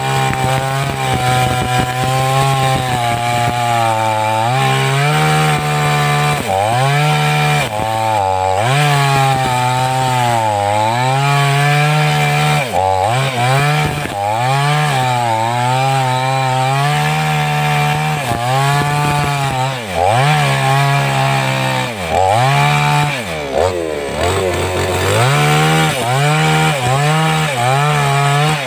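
588X two-stroke chainsaw running at high revs while cutting through an alba (sengon) tree, its pitch sagging and recovering again and again as the chain loads up in the wood.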